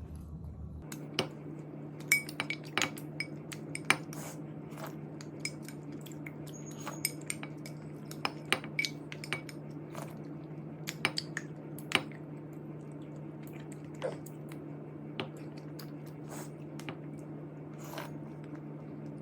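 Cutlery clicking and clinking against a plate or bowl in irregular sharp taps while eating. A steady low hum starts about a second in and runs underneath.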